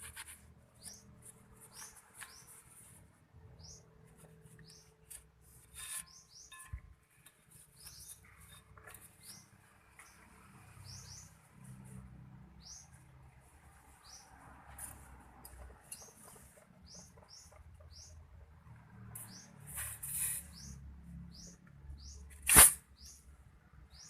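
Small birds chirping: short, high, falling chirps repeated irregularly. Light clicks sound in between, and a single sharp metallic clink near the end is the loudest sound.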